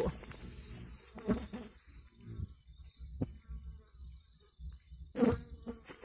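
Night insects, crickets, trilling steadily in a high band. Over them come scattered rustles and short knocks of hands handling a nylon cast net in dry grass, the loudest about five seconds in.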